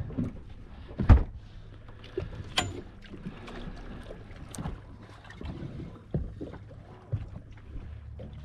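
Scattered knocks and clicks of gear being handled aboard a small fishing boat, with one loud thump about a second in, over a low steady hum.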